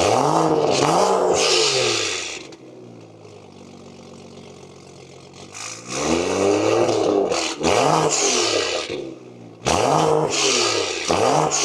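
BMW 435 engine being free-revved in quick blips, each rising and falling in pitch. It settles to a steady idle for a few seconds in the middle, then blips again several times.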